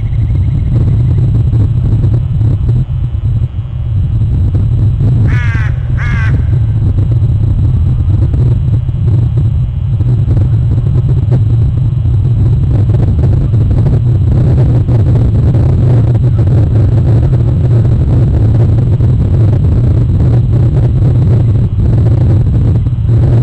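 Steady loud low rumble, with two short harsh bird calls close together about five seconds in.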